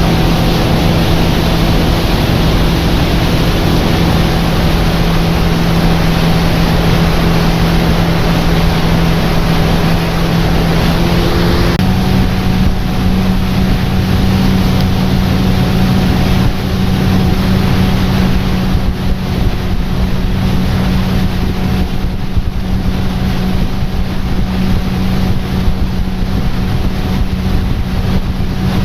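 A tour boat's engine running steadily under way, over a broad rush of water and wind. About twelve seconds in, the engine note steps up slightly, as if the throttle was opened a little.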